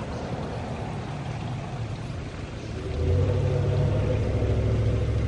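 A steady low engine drone starts about three seconds in and holds steady, over a soft background of running water.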